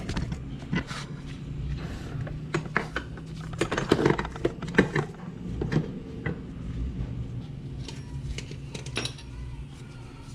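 Irregular small clicks, knocks and rattles of hands working a plastic wiring clip and brake-pad wear-sensor cable loose, busiest about four to five seconds in, over a low steady hum.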